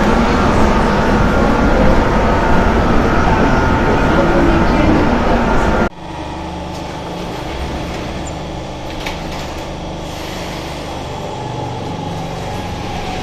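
Loud, steady rumble of a train running, heard from inside the carriage, cut off abruptly about six seconds in. After that comes the quieter steady hum of an underground metro platform, where a Marseille rubber-tyred metro train stands with its doors open.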